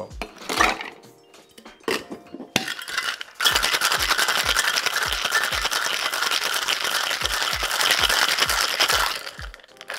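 Ice dropping into a metal cocktail shaker tin with a few clinks, then the sealed tin-on-tin shaker shaken hard, ice rattling inside for about six seconds before stopping near the end. It is a deliberately short shake for a drink that will be served over fresh ice.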